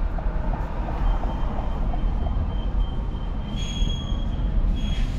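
Low road rumble of a vehicle driving, with a light rapid ticking that stops about a second in. A thin high-pitched squeal starts soon after and grows, loudest near the end.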